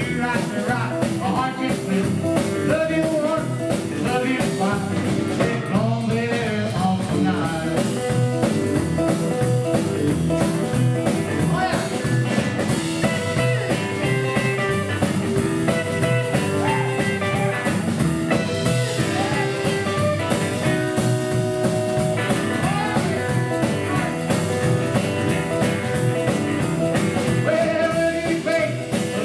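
Live rock and roll trio playing: hollow-body electric guitar, upright double bass and a small drum kit.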